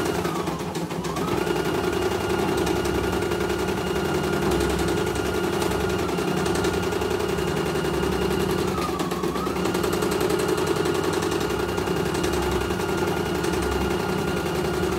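CNY E900 computerized embroidery machine stitching a design in its hoop: a fast, steady needle clatter over the whir of its motor. The motor briefly slows twice, about a second in and again some eight seconds later.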